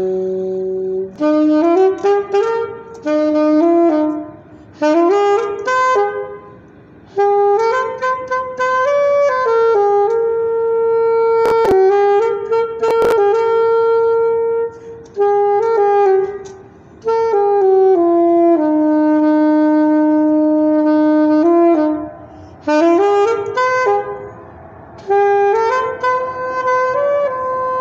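Saxophone played solo, a melody in short phrases of separate notes with pauses for breath between them and one long held low note about two-thirds of the way through. Two sharp clicks sound near the middle.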